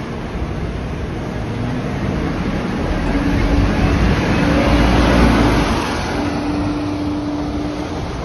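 Scania K230UB bus's diesel engine pulling away from a stop and driving off, swelling to its loudest about five seconds in and then falling away. A steady hum runs over it through the second half.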